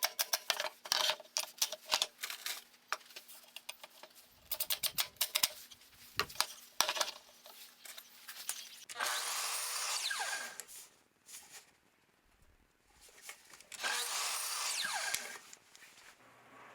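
A power drill runs in two short bursts of a second or two each, after a stretch of quick clicks and taps.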